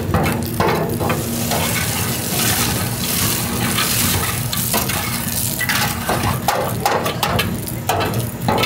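Food-processing machinery running with a steady low hum, under a continuous crackly rattle of many small clicks.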